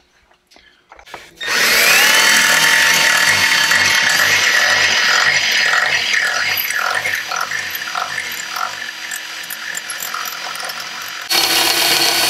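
Cordless drill with a step bit spinning up to speed about a second and a half in, then cutting into a metal Torqeedo motor-mounting bracket held in a vise, widening a bolt hole sideways into a slot. Through the middle the sound pulses a few times a second as the bit bites, and it gets louder again just before the end.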